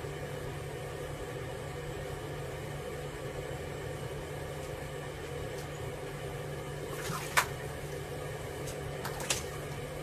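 A barn owl bathing in a water-filled bathroom sink: two brief splashes, about seven seconds in and again about two seconds later, over a steady low hum.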